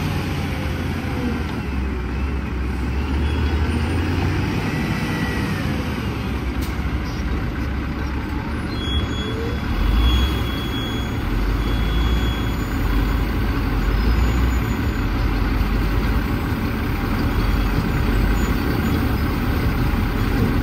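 Heavy wheel loader's diesel engine running under load as it lifts a bucket of gravel over a dump truck bed. The engine sound swells about halfway through as the bucket rises, then stays heavy.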